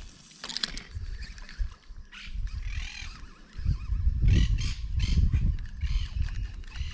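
Animal calls, several short wavering cries, over a low rumble.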